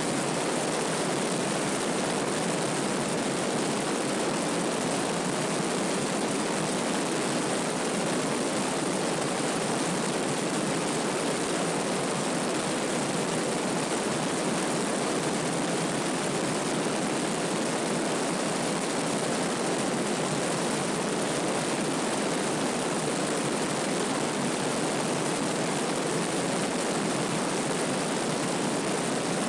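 Piper PA-32 single-engine six-cylinder piston aircraft in flight: a steady, unchanging drone of engine and propeller mixed with air rushing past a camera mounted outside under the wing.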